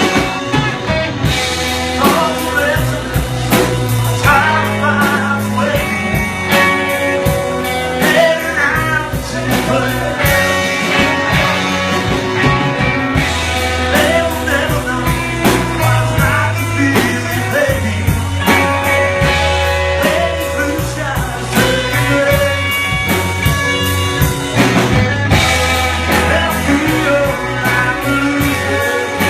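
Indie rock band playing: drums keeping a steady beat under bass and electric guitar.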